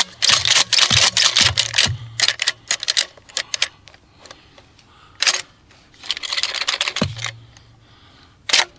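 Remington 870 pump-action shotgun being cycled by hand with 12-gauge mini shells: a rapid run of metallic clacks and rattles from the action, then a few separate clacks and a slide-like rattle. The short shells are hanging up in the action, which ends in a double jam.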